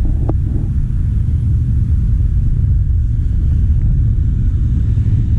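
A loud, steady low rumble with no clear engine note, and a short click about a third of a second in.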